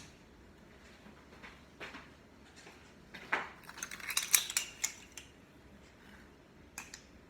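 Kitchen utensils and containers clinking and tapping while cake ingredients are handled: a few scattered clicks, with a quick cluster of sharper clinks about four to five seconds in.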